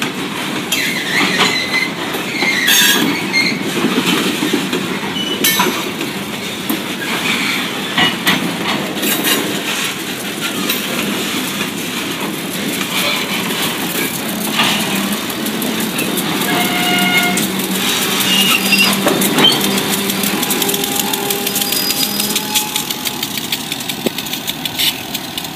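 Freight cars rolling slowly past on jointed track: wheels clicking and clanking over the rail joints, with short metallic wheel squeals now and then. In the second half the steady hum of diesel locomotives passing joins in.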